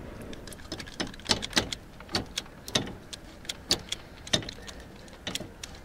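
Irregular sharp clicks and light taps, about two a second, of pliers working at a plastic cable tie on the wiring loom beside a radiator.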